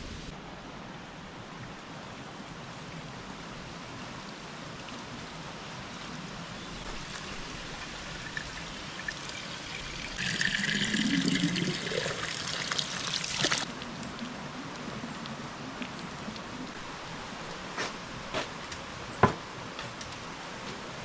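Liquid poured into a container for about three seconds midway, the pitch rising as the vessel fills. A few short knocks follow, one sharper than the rest near the end.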